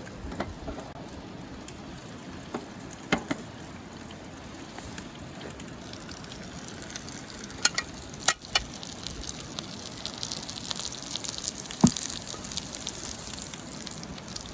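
Food frying in a pan over a wood fire, a steady sizzle with fine crackling that grows louder about two-thirds of the way through. A few sharp knocks and clicks sound over it.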